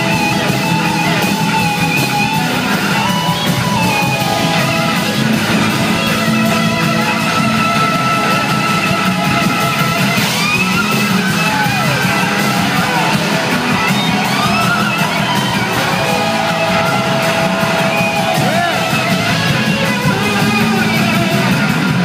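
Live rock band playing loud, heard from the crowd: electric slide guitar soloing in gliding, sliding notes over drums and bass.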